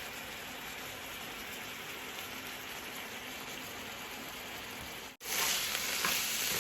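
Chicken and frozen mushrooms simmering in a karahi in the water the mushrooms let off, a steady bubbling hiss. About five seconds in it cuts off abruptly and a louder frying sizzle follows: the water cooked off and the oil separating.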